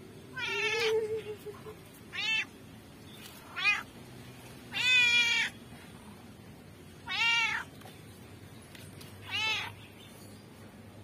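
Domestic cat meowing about six times, one call every second and a half to two seconds, each meow rising and falling in pitch; the longest and loudest comes near the middle.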